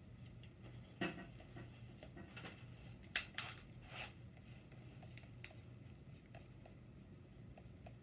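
Hand handling of a power drill's chuck: a few sharp metal clicks and knocks, loudest about three seconds in, then faint light ticking as the chuck is turned.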